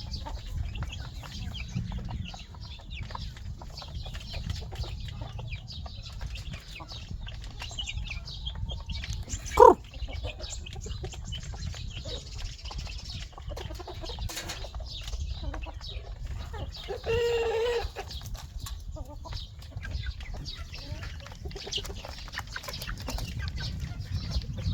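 Backyard chickens clucking, with a short sharp squawk about ten seconds in and a louder call lasting about a second some seven seconds later.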